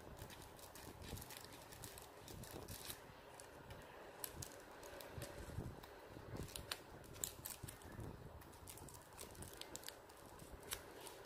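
Faint rustling and irregular small crinkling clicks of glossy ribbon being folded, twisted and tucked by hand.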